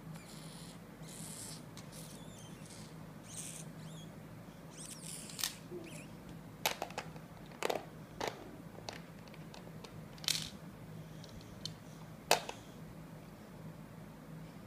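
Plastic bead puzzle pieces being handled and set onto the pegboard of a Wisdom Beads IQ puzzle: soft rustling at first, then about six sharp plastic clicks, the loudest a little before the end.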